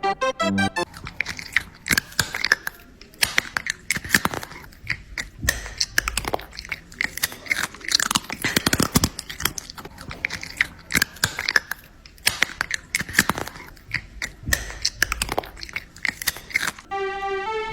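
A person chewing and eating, close to the microphone: irregular wet clicks and crunches of a mouthful of vegetable pasta. Background keyboard music stops just under a second in and comes back near the end.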